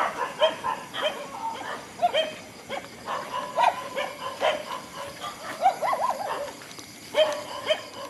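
Dogs barking in short, pitched yips and yelps, many in quick succession with brief pauses between runs.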